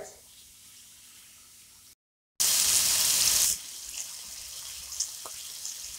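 Porterhouse steaks frying in a skillet in melted garlic-ginger butter, sizzling. Faint at first, then loud for about a second just after a cut, then settling into a steadier, quieter sizzle with a few small pops.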